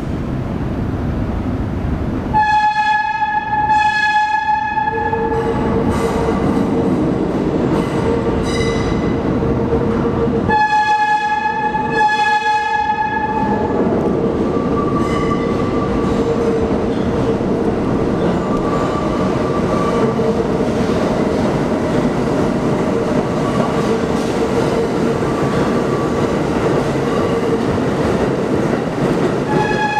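A Budd R32 subway train sounds its horn in two long blasts several seconds apart, with a third starting at the end. Between the blasts the train rumbles along the rails in the tunnel with a steady whine, drawing closer until it runs past.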